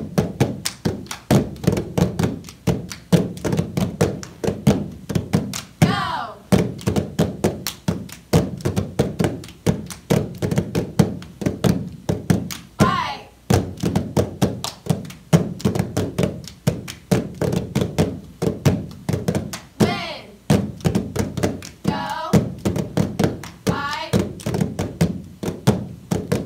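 Several people clapping their hands and slapping their legs and a padded gym mat in unison, a fast steady rhythm of sharp claps mixed with duller thuds.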